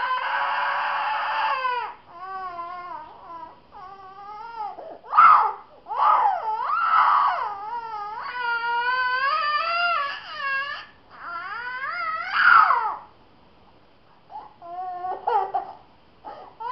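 A four-year-old boy crying out in pain: long, loud, wailing cries that waver up and down in pitch, broken by short pauses. There is a brief lull near the end, then a few shorter cries.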